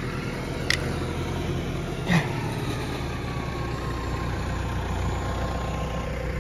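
Tractor engine idling steadily, with a light sharp click just under a second in and another about two seconds in.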